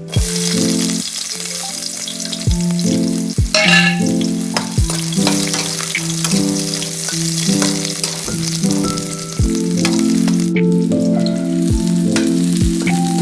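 Duck meat sizzling as it fries in a pan, with background music playing over it.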